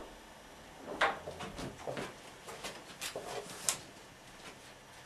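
A string of light clicks and knocks, short and sharp, the loudest about a second in and again past three and a half seconds.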